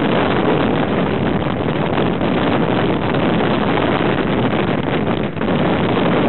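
Strong wind buffeting the microphone, a loud, steady rushing roar with no let-up.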